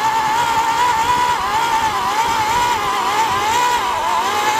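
Battery-powered AEG post hole borer (earth auger) drilling into soil under load, its motor whine wavering and dipping in pitch as the auger bites. It is being pushed deep in one go and keeps running without cutting out.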